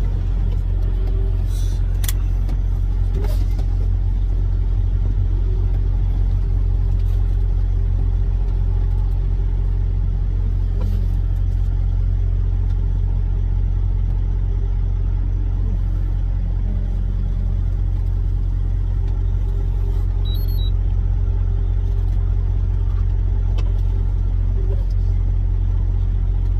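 Semi truck's diesel engine running as the truck rolls slowly, heard from inside the cab: a steady low drone with an even hum above it.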